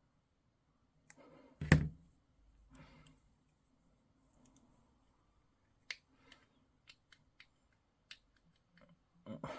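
Hobby tools and small plastic miniature parts being handled on a tabletop: a heavy knock about two seconds in, scattered sharp clicks later, and a few more knocks near the end.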